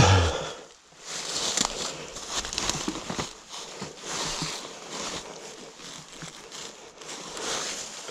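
Dry leaves and twigs crunching and crackling as something pushes through forest litter, in irregular patches of small snaps. A single loud bump comes right at the start.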